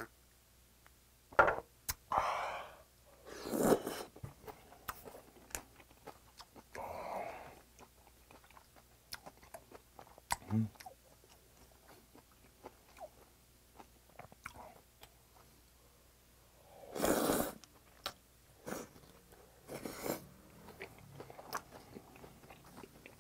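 Close-miked eating of cold raw squid strips and vegetables in spicy broth (mulhoe): chewing and slurping with many small wet mouth clicks. There are a few louder noisy bursts, the loudest about 17 seconds in.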